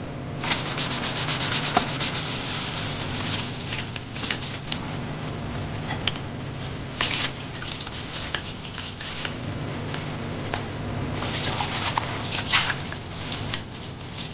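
Scrubbing in a kitchen: quick, repeated rubbing strokes on a hard surface, in several runs, with a few light knocks and clicks between them.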